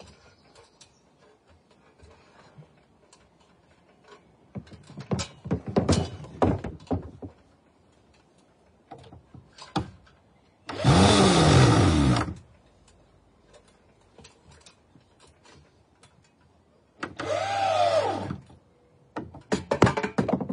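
Electric drill driving decking screws into the timber frame: the motor whirs in bursts of about a second each, near the middle, about three-quarters through, and again just before the end, with its pitch sagging and recovering as each screw bites. Scattered knocks and clatter come earlier.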